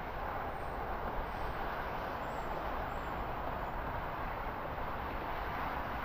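Steady rushing outdoor ambience picked up by the nest-cam microphone, with a few faint, very high short peeps in the first few seconds.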